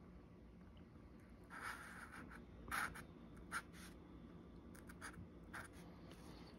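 Felt-tip marker drawing lines on paper: about half a dozen short, faint strokes, spread from under two seconds in to near the end.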